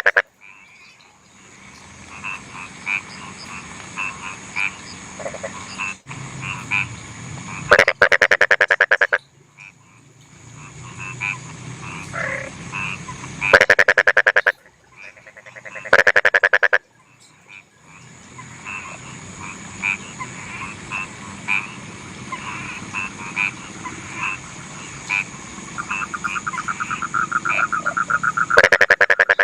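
Rice-field frogs croaking: four loud, rapid rattling call bouts about a second long each, over a background chorus of shorter repeated calls and a steady high whine.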